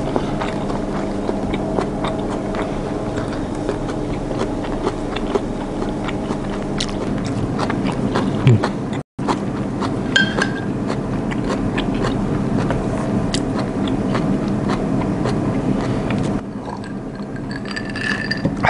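A man eating at close range: chewing mackerel simmered in miso, with frequent light clicks of wooden chopsticks against the dish, picked up by a clip-on microphone on his chest. A steady low hum lies underneath and drops away near the end.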